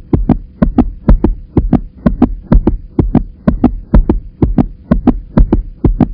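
Scissors snipping through a thin plastic bottle wall in rapid cuts, a quick even run of sharp snips about five or six a second, over a faint steady hum.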